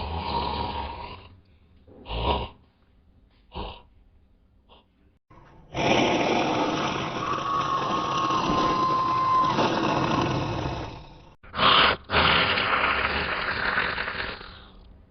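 Homemade dinosaur sound effects: a rasping growl, two short grunts, then a long roar of about five seconds from roughly six seconds in, followed by a short sharp burst and another long roar.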